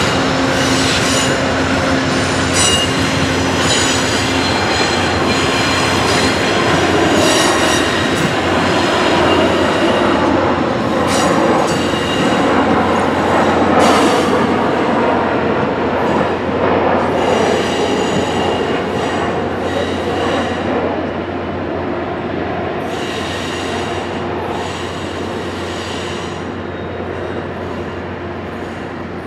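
Amtrak P42DC diesel locomotive and its train of bilevel passenger cars rolling past, the wheels squealing on and off in thin high tones. The sound fades over the last several seconds as the last car clears.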